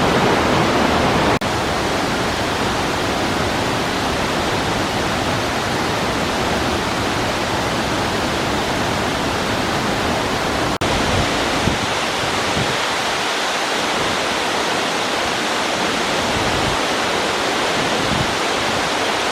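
Khlong Lan Waterfall pouring: a loud, steady rush of falling water. It drops out for an instant twice, about a second in and about eleven seconds in, and comes back a little quieter after the first dropout.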